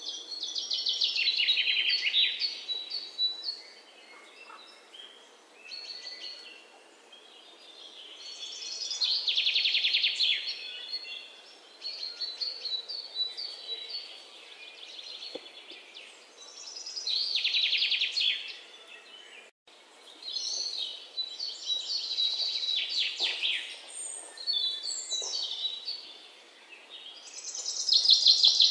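Birdsong: a songbird repeating a fast, falling trill of about two seconds every eight or nine seconds, with shorter chirps and calls in between.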